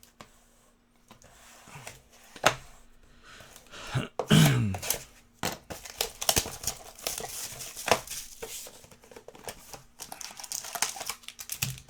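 Plastic wrapping on trading-card packaging crinkling and tearing as it is handled and opened, with a few sharp clicks. A short sound falling in pitch about four seconds in is the loudest moment, and steady crinkling follows from about six seconds in to near the end.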